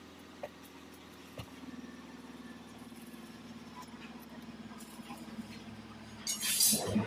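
A steady low hum with a few small clicks as metal power steering parts are handled, and a brief loud rustling scrape near the end.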